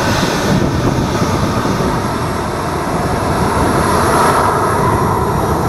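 Boeing 737-800's CFM56-7B jet engines running at taxi power as the airliner turns at the runway end, its exhausts swinging toward the listener. A loud, steady jet rumble, with a whine that grows stronger around four seconds in.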